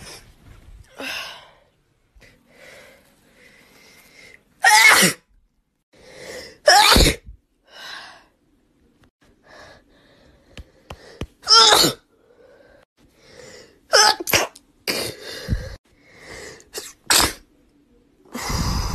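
A girl sneezing repeatedly: about eight short, loud sneezes, some in quick pairs near the middle, with quieter breaths building up between them.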